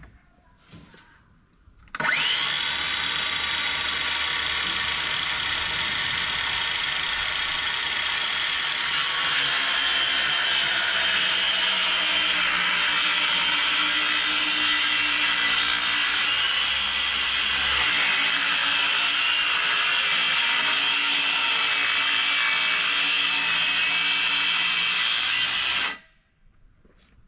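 Handheld circular saw ripping through a sheet of 1-inch plywood: the motor whines up to speed about two seconds in, runs through a long steady cut, and cuts off suddenly near the end.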